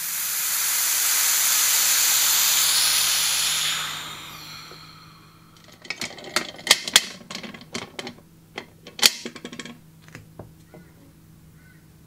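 Compressed air hissing out of a resin-casting pressure pot as it is vented, loud and steady for about four seconds before fading away. Then a run of sharp metallic clicks and clanks as the pot's wing-nut clamps and fittings are worked, the loudest about seven and nine seconds in.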